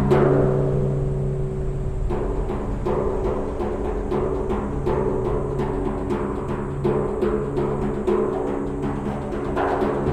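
Frame drum struck over and over, a few strokes a second, with a strong hit at the start; low, steady tones and overtones ring on between strokes, with the long echo of a pedestrian tunnel.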